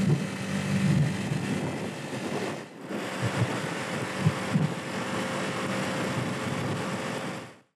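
Small 50cc motorbike engine running at steady speed while riding, with wind and road noise; the sound dips briefly a few seconds in and fades out at the end.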